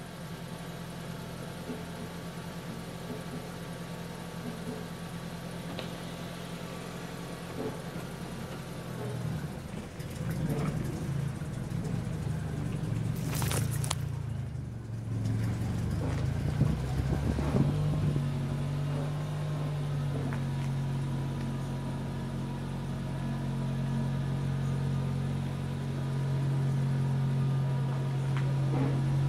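Car engine running at idle with a steady low hum. Around the middle it goes uneven for several seconds, with a sharp knock about halfway through, then settles back into a steady, slightly louder idle.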